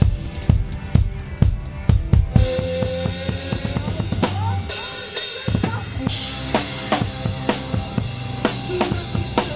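Live rock band playing: a drum kit with cymbals opens with hard, spaced strokes, then held guitar and bass notes come in, with a sliding note about four seconds in. The low end drops out briefly and the drums pick up a steady beat again at about six seconds.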